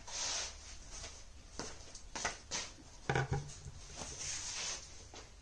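Handling noises as a monitor is hung on a tripod stand's bracket: a burst of rustling, then several light clicks and knocks, with a louder thump about three seconds in.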